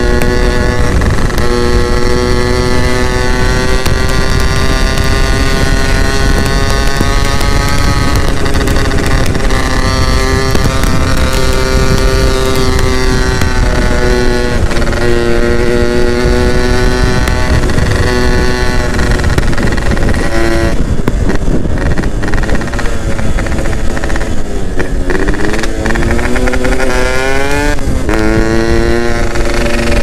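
Yamaha F1ZR's single-cylinder two-stroke engine pulling the motorcycle along at a steady speed, its exhaust note held level for most of the time with a brief dip partway. About two-thirds of the way in the throttle eases off, then the revs climb twice in rising sweeps as it speeds up again near the end.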